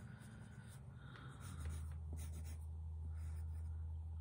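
Pencil scratching on paper as numbers are written out by hand. A low steady hum comes on about one and a half seconds in.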